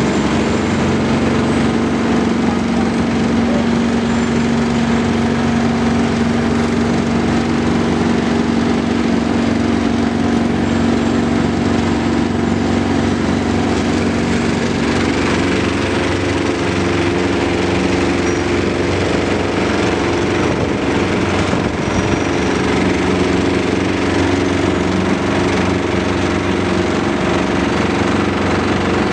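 Engines of heavy road-construction machinery running steadily with a dense mechanical rattle; the engine note shifts about halfway through.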